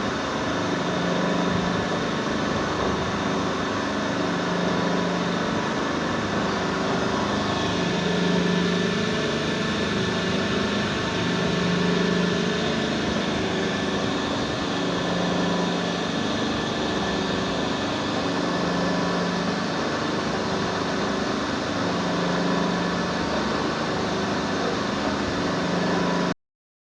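CNC boring machine running through a cut: a steady mechanical whir with a low hum that swells and fades about every three to four seconds. It cuts off abruptly near the end.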